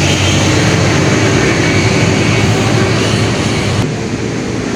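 Steady loud rumble of city street traffic, which changes abruptly and loses its hiss about four seconds in.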